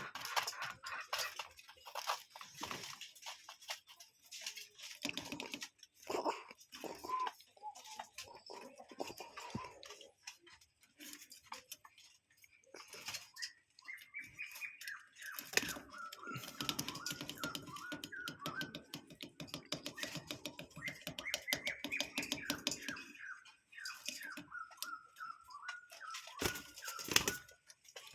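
A bird calling in two runs of quick, repeated notes, the first rising to a high note and then repeating at a steady pitch, with many small clicks and taps throughout.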